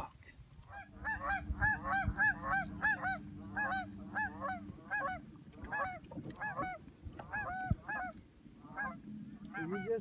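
A flock of geese honking: many short calls overlapping in quick succession, thinning out over the second half. A steady low hum runs underneath until about halfway through.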